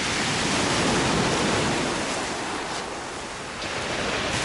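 Sea surf breaking and washing up a shingle beach: a steady rush of water that swells about a second in, eases a little and builds again near the end.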